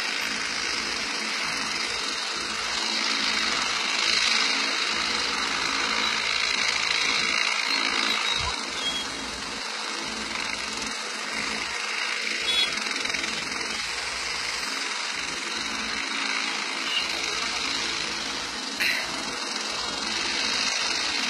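Helicopter running on the ground: a steady engine and rotor noise.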